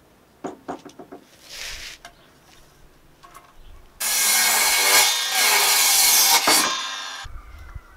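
Light knocks of a wooden floorboard being handled and positioned. About halfway through, a Ryobi mitre saw starts abruptly and cuts through the board for about two and a half seconds, then winds down.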